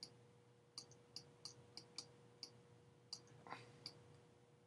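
Faint, sharp clicks of a pen stylus tapping on a drawing tablet while an equation is handwritten, irregular at about two a second, with one brief soft rustle about three and a half seconds in.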